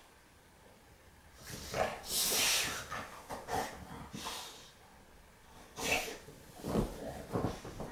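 Blue brindle Staffordshire bull terrier snorting and huffing as it burrows its nose into the sofa cushions and blanket. The snorts come in bursts starting about a second and a half in, with a short lull in the middle.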